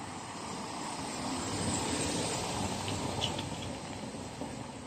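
Mercedes-Benz Sprinter van's engine idling at the roadside: a steady running sound that grows louder for a couple of seconds and then eases off. A few light clicks come about three seconds in.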